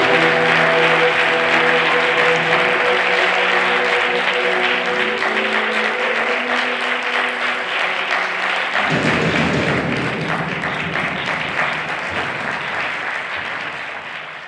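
Audience applauding as the music's last held notes die away about eight seconds in; the applause carries on alone, fuller from about nine seconds, and fades out at the end.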